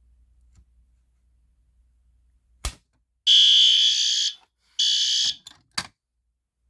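A sharp click about two and a half seconds in, then an electronic fire alarm horn sounds in loud, shrill blasts: one of about a second, then a shorter one, with another click between the blasts near the end.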